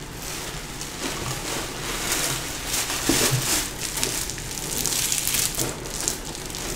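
Plastic packaging crinkling and a fabric gym bag rustling as it is unwrapped and handled: an irregular run of crackles and rustles.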